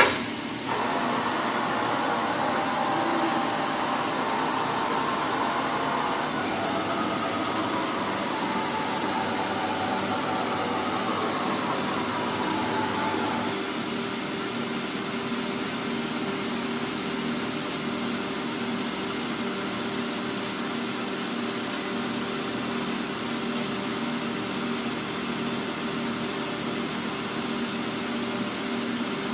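OKK PCV-55 CNC vertical mill running, a steady machine hum and whine. About six seconds in a high whine starts, and a tone slowly falls in pitch before the machine settles a little quieter.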